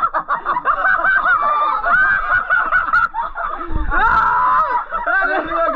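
High-pitched, honking squeals and laughter from several people, with shrieks of fright mixed with amusement.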